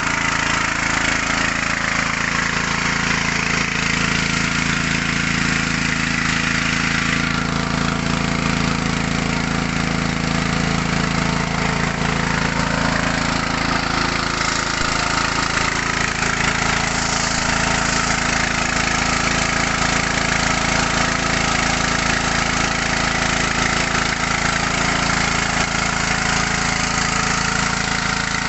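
Small 6.5–7 hp petrol engine running steadily, driving a mini rice huller-polisher machine.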